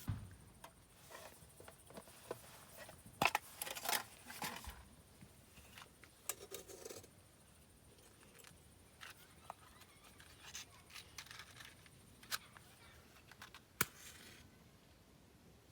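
Scattered rustling with light clicks and taps, like small things being handled. A cluster of louder rustles comes about three to five seconds in, and single sharp ticks near twelve and fourteen seconds.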